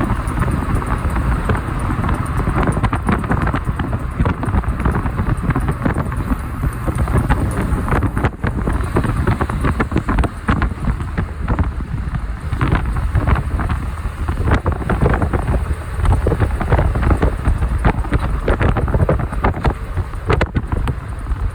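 A moving vehicle's road noise with wind buffeting the microphone: a continuous low rumble broken by rapid, irregular gusty crackles.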